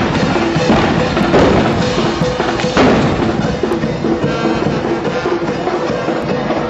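Carnival band music: a melody over drums and percussion.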